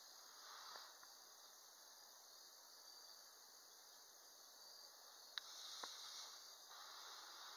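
Near silence: faint steady outdoor background hiss, with two small clicks about five and a half seconds in.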